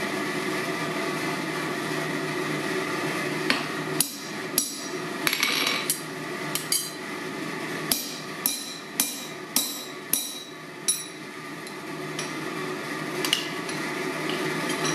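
Hammer blows on a steel drift driven through a hot punched square hole in a flat bar on the anvil: about a dozen sharp, ringing strikes in an uneven rhythm, starting a few seconds in and coming roughly two a second at their densest, over a steady hum.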